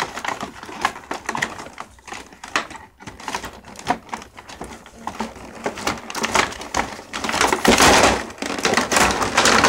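Small scissors snipping and tugging at the ties holding a toy in its box, with cardboard packaging crackling and rustling in quick irregular clicks. The rustling grows loudest near the end.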